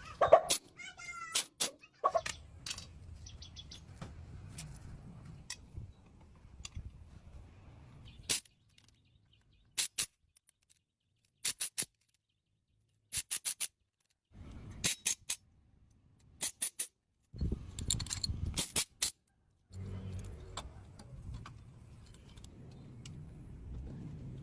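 Series of sharp clicks and knocks in short clusters, broken by stretches of dead silence. A short wavering cry, like a cat's meow, comes at the very start.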